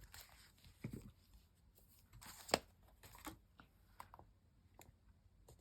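Faint rustling of magazine paper being handled and laid down, with scattered light taps and clicks; one sharper click about two and a half seconds in.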